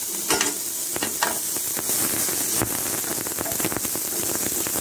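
Ginger-garlic paste and sliced onions sizzling and crackling in hot oil in a nonstick pan, stirred with a steel ladle. A few louder knocks of the ladle against the pan stand out.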